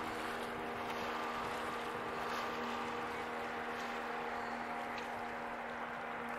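Boat motor running with a steady, unchanging hum over an even rushing hiss.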